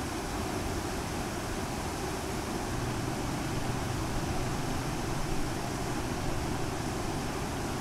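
Motorcycle on the move: a steady rushing of wind and road noise over a low engine hum that grows slightly stronger about a third of the way in.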